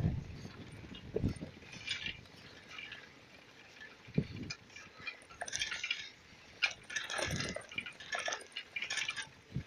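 Bicycle rattling and clinking as it rides over brick paving: irregular light clinks with a few low knocks.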